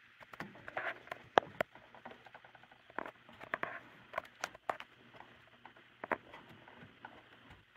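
Irregular small clicks and scrapes of a metal tab on an in-wall switch being bent back and forth and wiggled to break it off.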